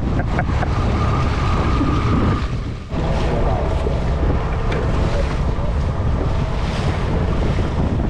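Strong wind buffeting the microphone over water splashing and rushing along the hull of a moving boat on choppy salt water. The noise drops briefly about three seconds in, then runs on as before.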